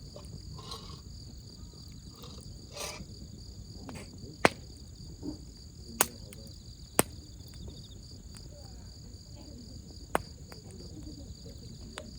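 Wood campfire burning with a steady low rumble and a handful of sharp pops and snaps from the burning wood. Behind it runs a steady, high chorus of crickets.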